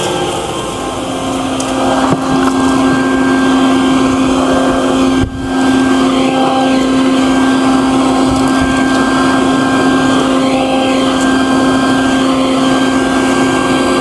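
Wet/dry shop vacuum running as a blower: a steady motor drone with rushing air as it blows dust out of a refrigerator's condenser coils and compressor compartment, with a brief break about five seconds in.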